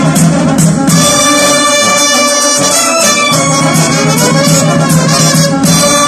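Loud brass band (fanfară) playing: trumpets and brass horns carrying the tune over a bass drum.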